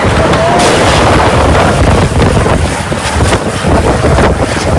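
Storm wind gusting hard across the microphone, a loud, churning rumble with a hiss of wind-driven rain over it.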